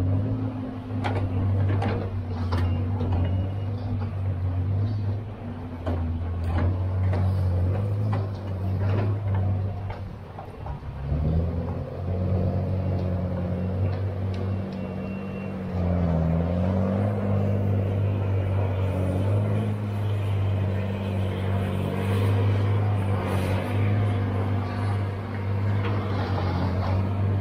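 Diesel engine of a John Deere tracked knuckleboom log loader running under hydraulic load, its pitch stepping up and down as the boom swings and the grapple works, with a brief drop about ten seconds in. Sharp knocks of the grapple and logs are heard in the first several seconds.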